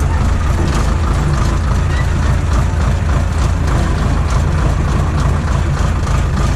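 Tractor diesel engine running steadily, a deep even drone with no change in speed.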